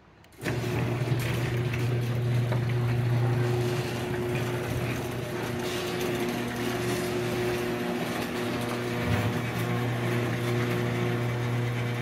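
Electric garage door opener motor running with a steady hum as it lowers a sectional garage door along its tracks. The hum starts about half a second in and falters briefly around nine seconds in.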